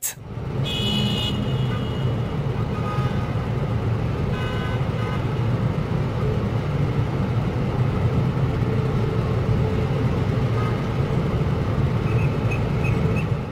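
Busy city street traffic: a steady rumble of cars and trucks, with short car-horn toots about a second in and again around four and a half seconds.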